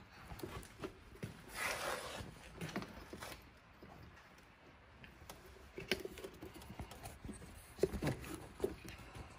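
Faint handling noise from hands working on a small quad's engine and frame: scattered light clicks and metal taps, with a brief rustle about two seconds in and a few sharper clicks near the end.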